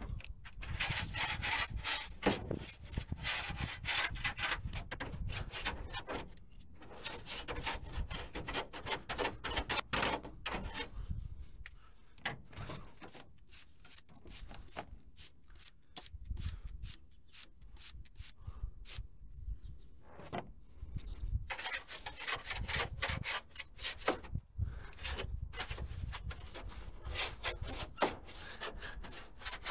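Fast back-and-forth scrubbing strokes, a brush or cloth rubbing on a vehicle surface while detailing, in busy runs with a sparser stretch in the middle.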